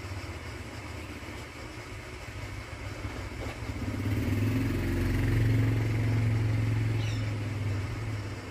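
Hot air rework gun blowing on a phone motherboard, a steady fan hum with airy hiss that swells louder in the middle and eases off near the end, as the board is heated to desolder the faulty backlight boost coil.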